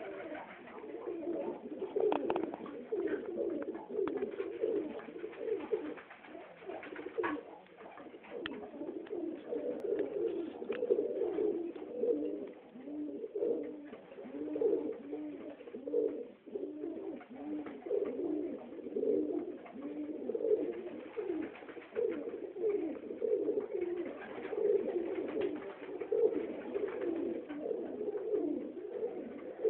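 Many Budapest highflyer pigeons cooing continuously in the loft, their low, rolling coos overlapping one another.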